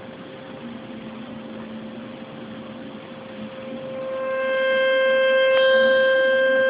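Water heating on the boil with a low steady hiss, then a steam whistle on the boiling pot comes in about four seconds in and swells to a loud, steady, shrill tone.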